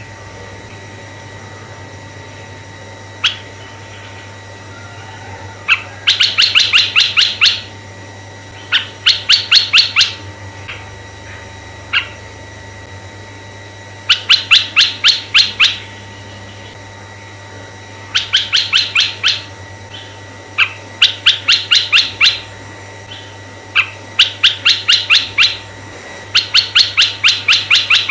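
Red-eyed bulbul song: bursts of about ten rapid, sharp notes, each burst lasting one to two seconds and repeated every few seconds, with a few single notes between them. A faint steady low hum runs underneath.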